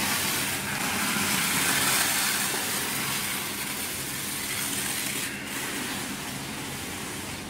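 Plastic stretch film being pulled off a hand-held roll and wrapped around a machine, a steady hissing crackle that is loudest about two seconds in, over a low steady hum.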